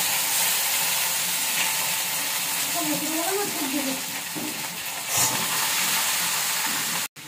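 Food sizzling in hot oil in a wok on a gas stove: a loud, steady frying hiss with a brief louder flare about five seconds in, cutting off abruptly near the end.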